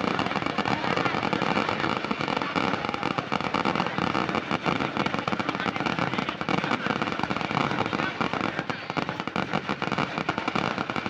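Fireworks going off in a dense, continuous barrage of rapid bangs and crackles, thinning slightly near the end.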